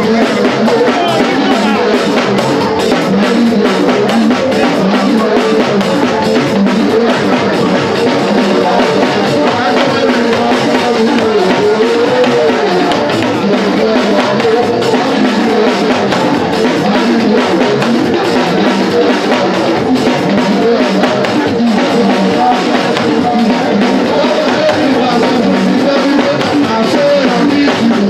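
Upbeat dance music with drums and guitar and a steady beat, playing for an entrance dance.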